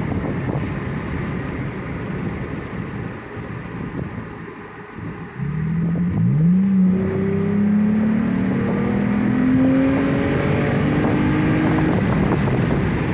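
Wind and road noise through open windows of a 2020 Toyota Tacoma cab. About five seconds in, its V6 with a Borla S-Type cat-back exhaust accelerates hard, the engine note rising steadily in pitch. The exhaust stays quiet, described as super quiet.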